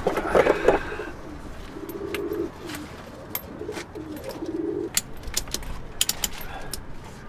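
Domestic pigeons cooing in short low phrases, with scattered sharp clicks and knocks and a louder burst of noise in the first second.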